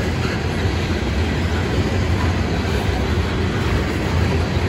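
Tank cars of a long freight train rolling past, a steady rumble of steel wheels on rail.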